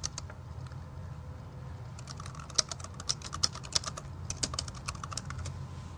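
Typing on a computer keyboard: an uneven run of quick keystroke clicks, thickest from about two seconds in until past five seconds in.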